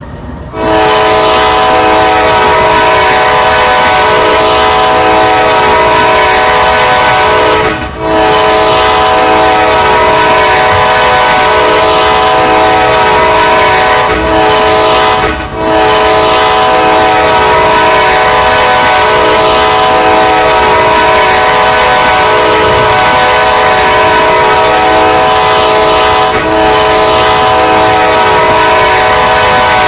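Air horn of a Kansas City Southern GE AC4400 diesel locomotive sounding loud, long held blasts of several notes at once. Short breaks about 8, 15 and 26 seconds in divide the blasts.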